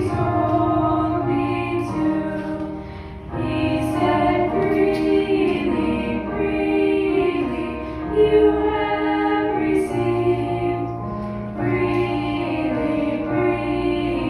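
Church music: choir voices singing a slow hymn over sustained instrumental accompaniment with a low bass line.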